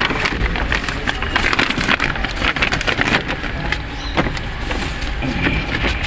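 Plastic vapour-barrier sheet of a car door crinkling and rustling as it is handled and pressed back onto the door, with many small crackles.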